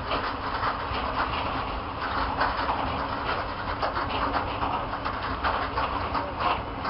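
Freight train's hopper wagons rolling past, their steel wheels running on the rails with an irregular clatter of clicks and knocks.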